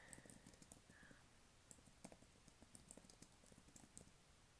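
Typing on a computer keyboard: soft, quick, irregular key clicks.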